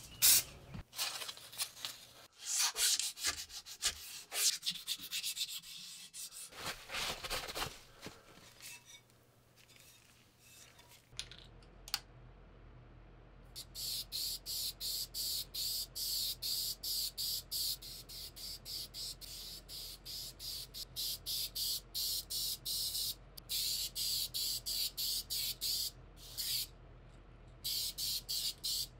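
Rust-Oleum aerosol spray paint can sprayed in short rapid bursts, a hiss pulsing on and off two or three times a second with brief pauses between passes.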